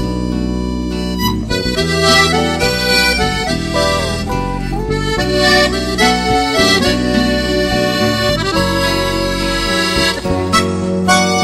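Instrumental background music: a held melody over sustained chords and low bass notes, the notes shifting every half second or so.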